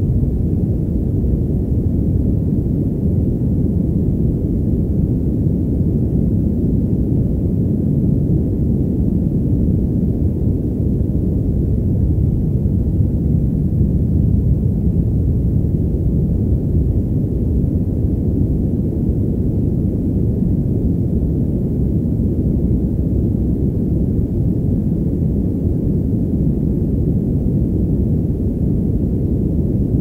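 Steady "padded" white noise: white noise muffled so that the high end is cut away, leaving a deep, even rush with no hiss and no changes.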